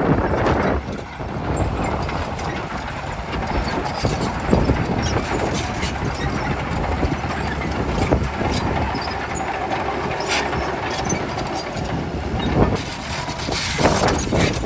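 Bulldozer's diesel engine running steadily, with frequent short clanks from its steel tracks; it grows louder for a moment near the end.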